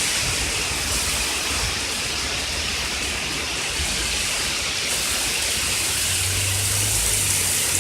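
Torrential thunderstorm rain pouring down in a steady, dense rush.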